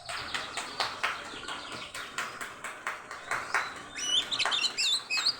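Oriental magpie-robin (kacer) in full song, as a male in breeding condition sings: about four seconds of rapid, harsh chattering notes, then clear high whistles and slurred glides near the end.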